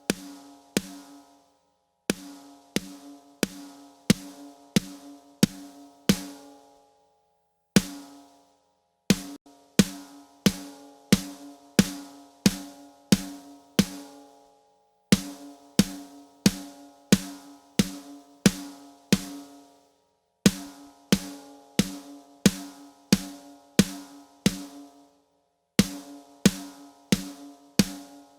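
Drum track playing through a compressor plugin preset: sharp drum hits about one and a half a second, each with a pitched ring, repeated in short loops that break off into brief silences.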